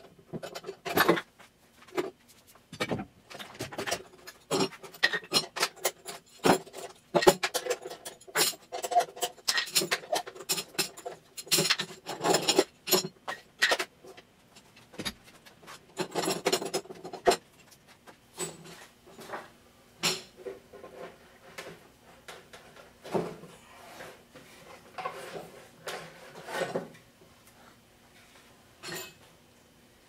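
Metal bar clamps being loosened and pulled off a bent-wood lamination form, clanking and rattling against each other and the wood. The knocks come thick and fast for the first half, then thin out to scattered clunks.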